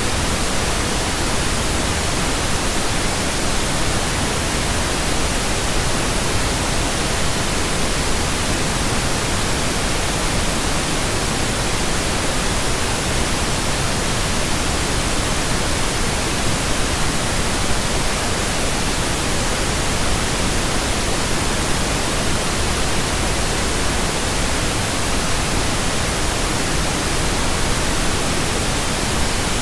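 Steady pink noise: an even, unchanging hiss spread across low and high pitches alike.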